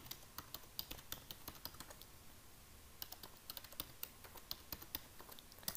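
Typing on a computer keyboard: faint key clicks in quick, uneven runs, several a second.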